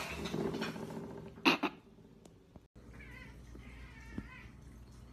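A domestic cat meowing: a short, sharp call about one and a half seconds in, then fainter wavering meows.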